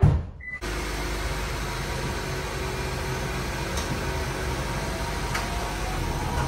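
Steady low mechanical hum with an even hiss, starting abruptly just over half a second in, after a sharp click.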